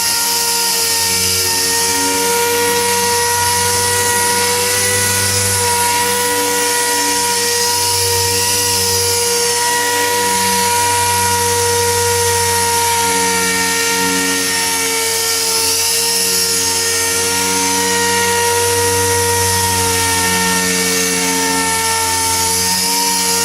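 Air-powered sander with a 5000-grit disc running steadily, wet sanding a car's clear coat: an even high whine with a hiss over it.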